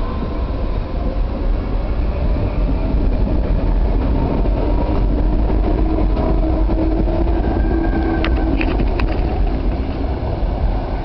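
Tangara electric multiple-unit train pulling away from the platform: a loud, steady low rumble of wheels and running gear with a faint whine from the traction motors. A few sharp clicks come about eight seconds in.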